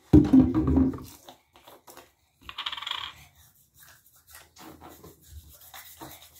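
A plastic mouthwash bottle being handled at a sink counter: a loud knock as it is grabbed, then a short scratchy rattle about two and a half seconds in as its cap is worked, then softer rubbing and handling.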